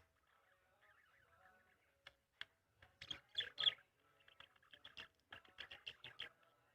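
Small birds chirping: faint warbling at first, then a quick series of short, sharp chirps from about two seconds in.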